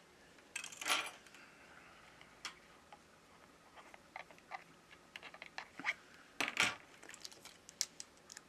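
Thin plastic pry tools clicking and scraping against a smartphone's battery and frame as the glued-in battery is prised up off its adhesive. Scattered light clicks, with two louder rasping scrapes about a second in and around six and a half seconds.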